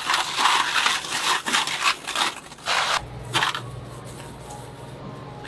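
Rustling and scraping handling noise in irregular bursts for about three and a half seconds, stopping abruptly, after which only a low steady hum remains.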